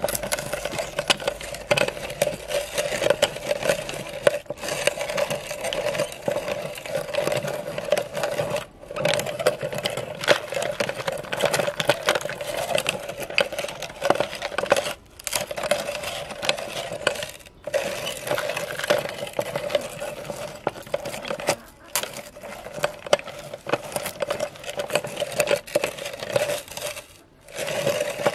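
Electric meat grinder running with a steady motor hum while its auger crushes hard lollipops, a dense crunching and crackling of breaking candy. The sound drops out briefly several times.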